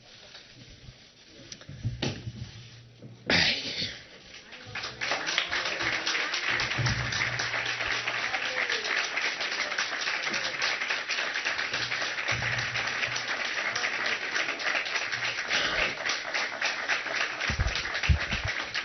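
A roomful of people applauding steadily, starting about five seconds in after a few seconds of near quiet with two brief noises.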